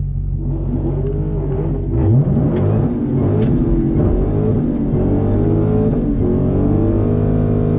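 2021 Dodge Challenger Hellcat Redeye's supercharged 6.2-litre HEMI V8 revving hard through a drag-strip burnout, its rear tyres spinning on the pavement. The engine pitch climbs and falls again and again, sweeping up sharply about two seconds in.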